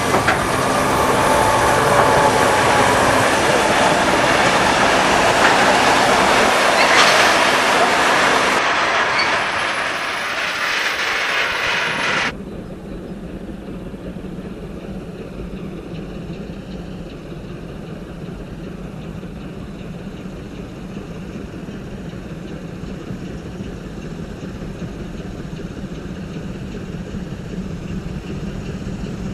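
Steam-hauled freight train running close by, a loud dense rumble of wheels and locomotive, cut off abruptly about twelve seconds in. Then the steadier, quieter rumble of a DB class 043 2-10-0 steam locomotive working a heavy ore train in the distance, slowly growing louder as it approaches.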